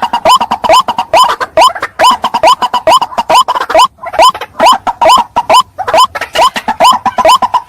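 White-breasted waterhen calling: a loud, fast, unbroken series of short rising notes, about three or four a second, the ruak-ruak call.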